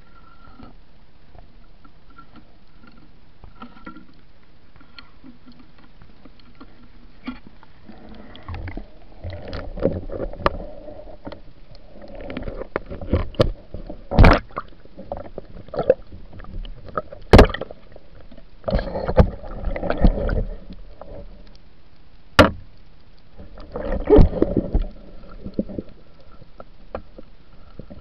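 Underwater sound heard through a diver's camera: muffled rushing and gurgling of water in several swells, from about a third of the way in, with a few sharp knocks between them.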